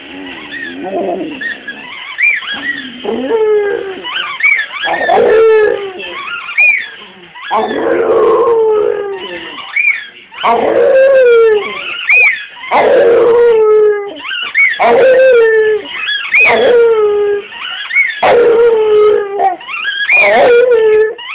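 A dog howling: a string of pitched calls, each about a second long and falling in pitch, repeated every second or two and louder in the second half.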